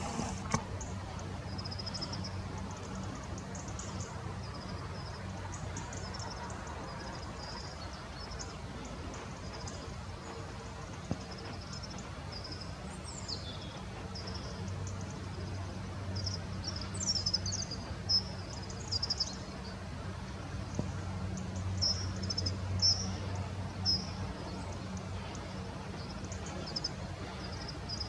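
Short high-pitched bird chirps and calls, repeated throughout, with one call sliding down in pitch about halfway through, over a steady low hum.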